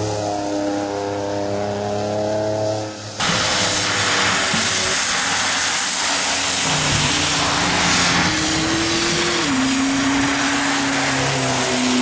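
Rally cars passing on a soaked road. An engine runs at a steady note, then about three seconds in a loud hiss of tyre spray and water sets in over an engine that rises in pitch and drops suddenly, as at a gear change, near the end.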